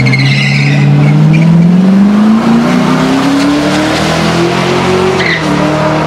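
Drag-race cars launching off the start line and accelerating down the strip. Tyres squeal briefly at the launch, then engine pitch rises steadily for about five seconds and drops near the end.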